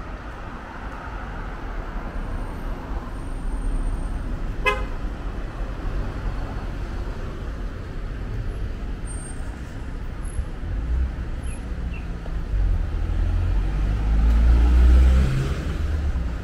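Street traffic with engines running steadily. A short horn toot comes about five seconds in. Near the end a vehicle passes close with a rising engine note, the loudest sound here.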